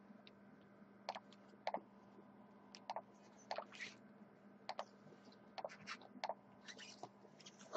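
Cardboard trading-card boxes being handled and set down on a glass tabletop: scattered light taps and scrapes, some in quick pairs, over a faint steady hum.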